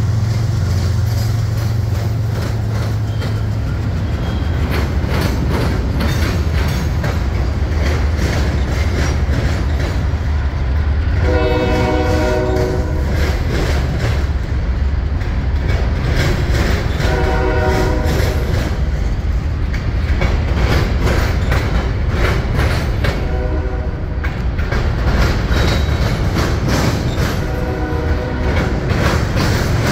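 Freight train passing close: the Norfolk Southern GE ES40DC diesel locomotive rumbles by first, then the freight cars' wheels clatter steadily over the rails. A multi-tone locomotive horn sounds four blasts, the first about eleven seconds in and the longest, the last three shorter.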